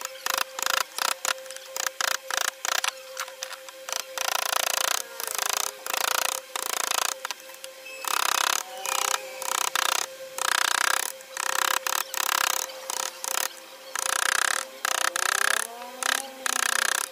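Steel claw hammer striking wood-carving gouges and chisels into a hardwood panel. It starts as a fast run of sharp taps, then turns to slower, longer-sounding strokes about once or twice a second, over a faint steady hum.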